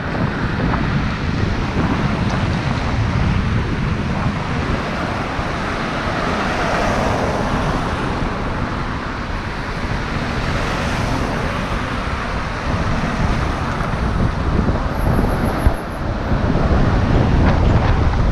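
Street traffic, with cars passing along a city road, mixed with wind rumbling on the microphone.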